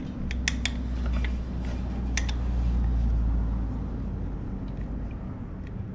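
A few sharp metallic clicks and clinks of hand tools and parts as the air box is bolted back onto a Honda CRF50's carburetor, over a low rumble that fades out about four and a half seconds in.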